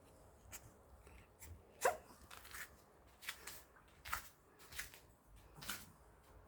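A small dog crying in a series of short whimpers and yelps, about one a second. The loudest is a yelp falling in pitch about two seconds in.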